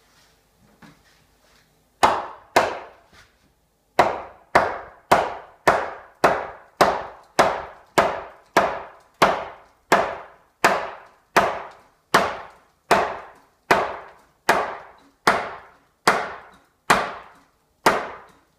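Hammer blows nailing a wooden brace to the framing: two strikes, a pause, then a steady run of about two dozen evenly spaced blows, each a sharp crack with a short ring.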